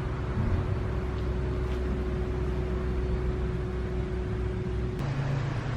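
Steady mechanical hum with a hiss and low rumble, carrying one held tone that cuts off abruptly about five seconds in, after which a lower hum takes over.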